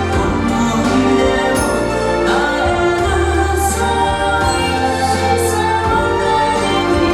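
Yosakoi dance music with singing voices over sustained held notes and a heavy, steady bass.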